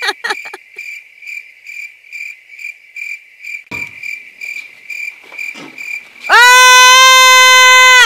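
Cricket-chirp sound effect, a high chirp repeating about three times a second. About six seconds in, a loud, steady horn-like note comes in with a short upward slide and cuts off suddenly near the end.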